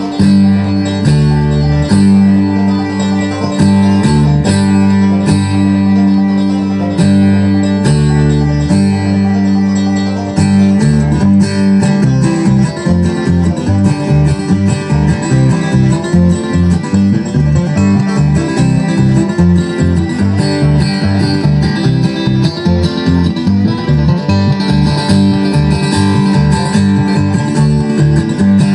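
Live bluegrass band playing an instrumental tune on banjo and guitar, starting with held chords and breaking into fast picking about ten seconds in.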